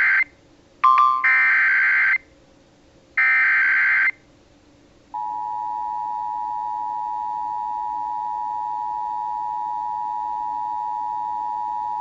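Emergency Alert System header: the digital SAME data bursts screech, the end of one and then two more, each about a second long with short gaps between. After a pause, about five seconds in, a steady alert tone starts and holds. It is the opening of an EAS severe thunderstorm warning.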